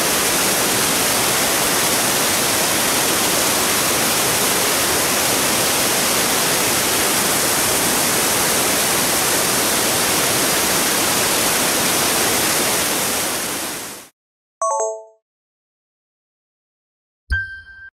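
Waterfall cascading down rocky tiers, a steady loud rush of falling water that fades out about fourteen seconds in. After a moment of silence a short chime sounds, and a brief electronic tone comes near the end with the Sony logo.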